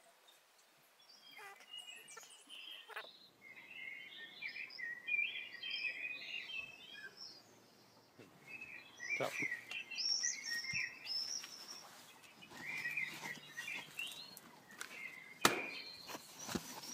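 Small birds chirping and singing in short, repeated phrases, with a few sharp clicks, the loudest near the end.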